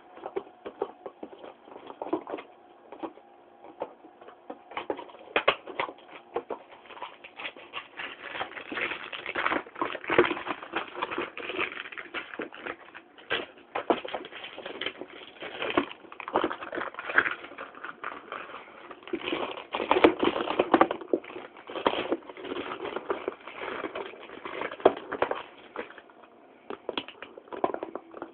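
Irish Setter playing on a bed: an irregular, busy run of clicks, scuffs and rustles as it mouths and paws at things on the bedding, busiest in the middle.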